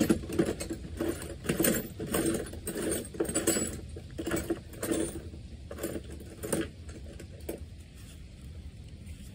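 Hand tools and metal parts clinking and rattling in irregular knocks as an Allen bit is worked on a stuck fastener of a Wisconsin V4 engine. The knocks thin out after about seven seconds.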